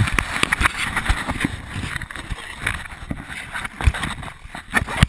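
Rubbing and knocking on a GoPro strapped to a moving dog: fur brushing across the camera housing, with irregular bumps and clicks as the loose mount shifts.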